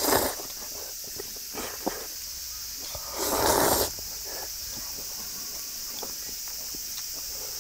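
Steady high-pitched chirring of summer insects. Two short breathy noise bursts, each about half a second, stand out: one at the very start and a louder one about three seconds in.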